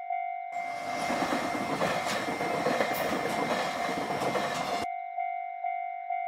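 Japanese railroad crossing bell ringing steadily, struck about twice a second. About half a second in, a train passes for roughly four seconds, louder than the bell, then the bell rings on alone.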